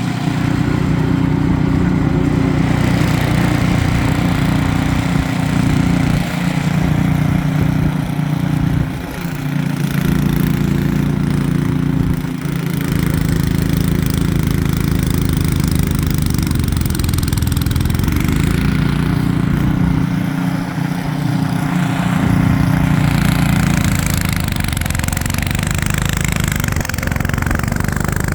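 Ariens 28-inch two-stage snowblower's engine running steadily while clearing a snowbank of wet, heavy snow, with a few brief dips in the engine note.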